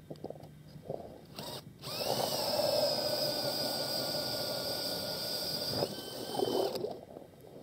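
Ice auger driven by a power drill, running with a steady whine for about four seconds, then switching to a higher tone for about a second before it stops. A sharp knock comes just before it starts.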